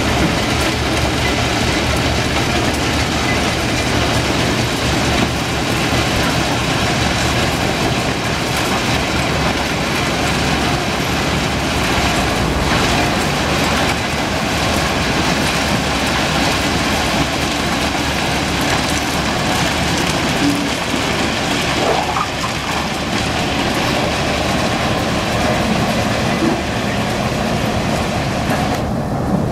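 Ballast hopper wagons and a diesel locomotive working slowly on the track: a steady, continuous rail rumble and rattle.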